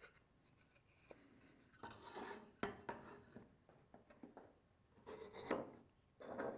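A wooden marking gauge and a pencil drawn along a board to lay out joint lines, scraping the wood in three short strokes: about two seconds in, about five seconds in, and near the end. Small clicks of the tools against the wood come in between.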